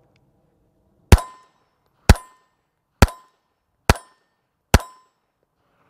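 Heckler & Koch HK4 pistol fired five times in .380 ACP, shots about a second apart, each a sharp crack with a short ringing tail.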